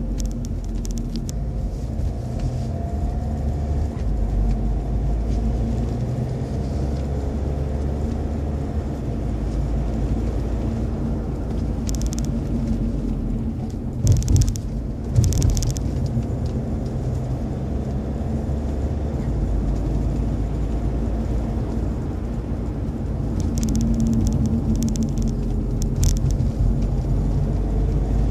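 Steady engine and tyre rumble of a car being driven, heard from inside the cabin. About halfway through come two brief thumps a second apart, with a few short rattles near the end.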